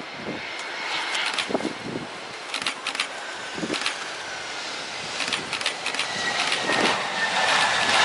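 Airbus A320 airliner landing: a jet-engine rushing noise dotted with crackles that grows louder toward the end, with a faint whine falling in pitch over the last few seconds.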